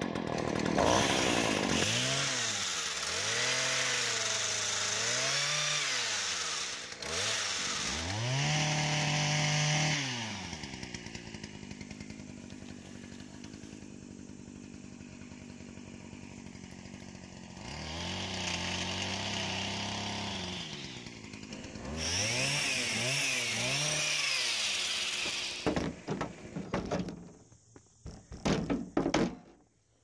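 Stihl gas pole saw engine revving up and down in repeated bursts while trimming honey locust saplings, dropping to idle for several seconds in the middle. The engine stops near the end, followed by a few sharp knocks and rustles.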